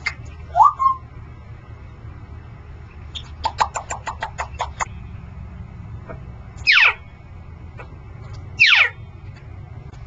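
Congo African grey parrot whistling and clicking: a short rising whistle, then a quick run of clicks, then two loud falling whistles about two seconds apart.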